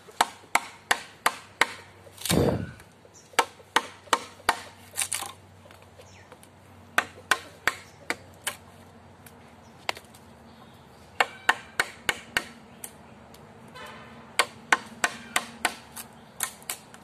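Sharp hammer blows on a wooden log frame, coming in quick runs of four to eight strikes at about three a second, with pauses of a couple of seconds between runs. A short rushing sound comes about two seconds in.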